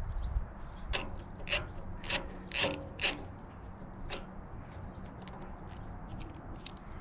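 Ratchet wrench clicking in about six sharp strokes over three seconds, then a few fainter ticks, as a motorcycle fuel tank bolt is unscrewed.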